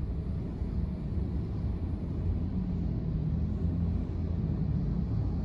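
Steady low rumble of a car heard from inside the cabin, its engine running.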